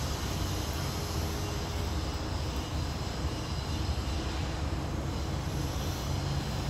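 A steady low rumble of background noise, even throughout with no distinct knocks or clicks.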